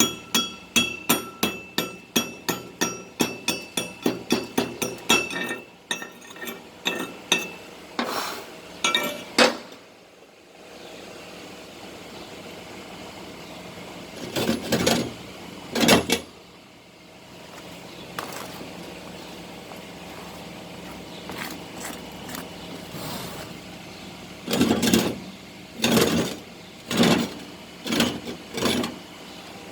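Hammer strikes ringing on a welded steel pipe flange, fast and even at about three a second for the first several seconds, then a few shorter groups of knocks later on. This is typical of slag being chipped off the finished stick welds.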